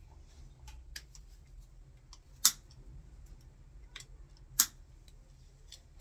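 Scattered sharp clicks, two louder ones about two seconds apart among a few fainter ticks, from small electrical fittings being handled.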